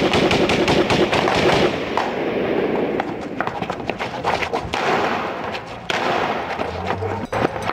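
Heavy gunfire from several guns in a shootout, many shots overlapping in quick succession, with a brief lull just before six seconds in.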